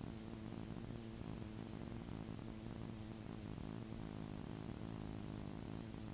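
Single-seat light aircraft's engine and propeller running at low power during the landing rollout: a steady, even drone.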